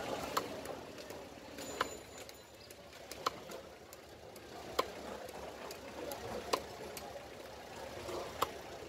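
Large knife chopping a pangas fish into steaks on a wooden chopping block: six sharp knocks, about one every second and a half, over steady background noise.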